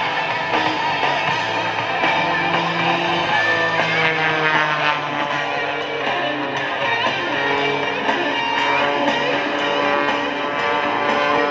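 Rock-style music with guitar, playing steadily throughout.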